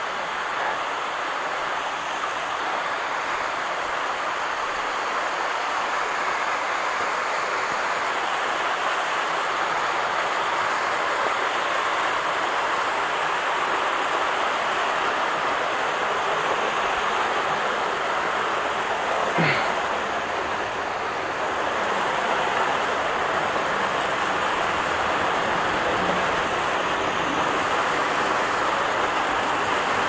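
Waterfall rushing steadily as water pours down the rock face, with one brief sharp sound about two-thirds of the way through.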